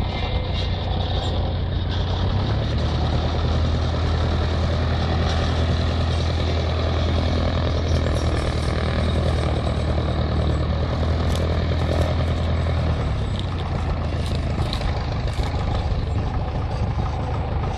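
De Havilland Tiger Moth's Gipsy Major four-cylinder engine running at low power as the biplane taxis, a steady low drone. The note shifts lower about two and a half seconds in and softens over the last few seconds.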